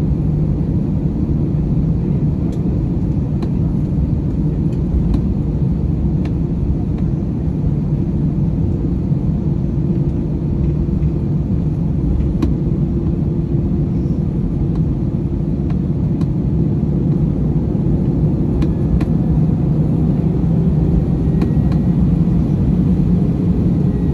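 Cabin of an Airbus A321 taxiing: a steady low rumble of the jet engines and the rolling wheels, with a few faint clicks. The rumble grows slightly louder near the end.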